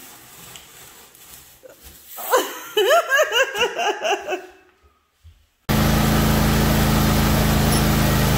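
A burst of high-pitched laughter, several rising-and-falling whoops. After a short quiet gap, a Husqvarna riding mower's engine cuts in suddenly about two-thirds of the way through and runs steadily with a low hum.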